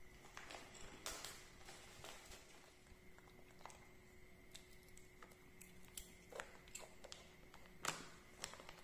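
Scattered faint crinkles and small crackles of a paper snack packet handled and torn by a baby monkey, with a sharper crackle near the end.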